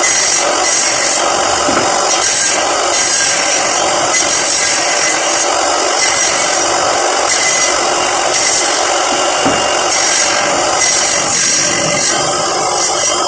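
Wood rasping and scraping in repeated strokes, roughly one or two a second, as a wooden cricket-bat blank is worked across a plywood worktable.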